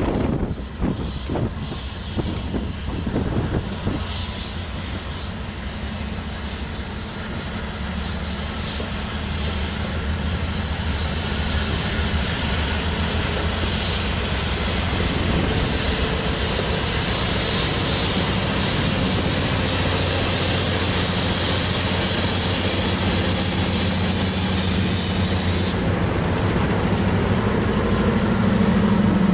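CSX freight train's diesel locomotives approaching and passing close by: a steady engine drone that grows louder as the lead units go past, with wind buffeting the microphone in the first few seconds. A high hiss builds over the middle and cuts off abruptly a few seconds before the end.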